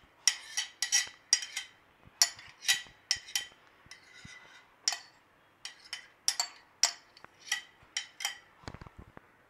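A kitchen utensil clinking and scraping against a steel bowl as thick spinach paste is scraped out into flour. The clinks are sharp and irregular, with a short lull about four seconds in and then more.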